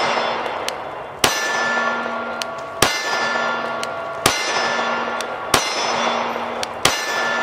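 Arex Rex Zero 1 CP compact 9mm pistol fired five times at a steel target, about one shot every second and a half. Each shot is followed by a long metallic ring from the struck steel plate that fades until the next shot.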